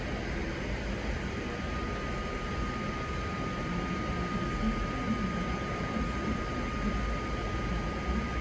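Steady railway station ambience: a low rumble and hiss with a constant thin high whine, as a passenger train approaches in the distance.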